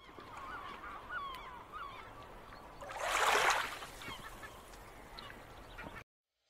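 Birds crying in many short, rising and falling calls over a faint hiss, with a louder swell of rushing noise about three seconds in; the sound cuts off suddenly near the end.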